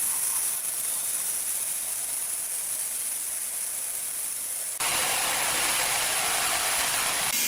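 Woodworking plant machinery running: a steady hissing noise that switches abruptly to a louder, fuller noise about five seconds in.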